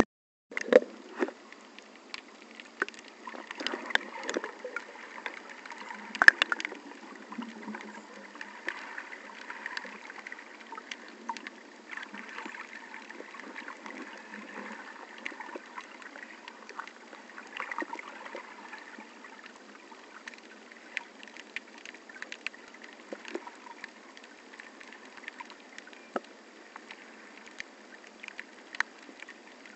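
Water sloshing and gurgling heard underwater through an action camera's waterproof housing, muffled, with many scattered clicks and a few sharp knocks, busiest in the first ten seconds or so.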